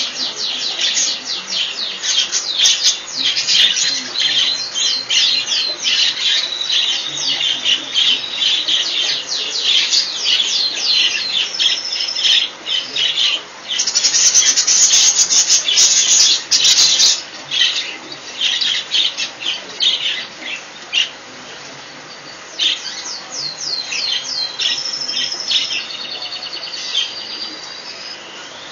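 A caged flock of budgerigars chattering: rapid, overlapping chirps and squawks. There is a louder, denser stretch of squawking about halfway through, and the chatter thins out over the last third.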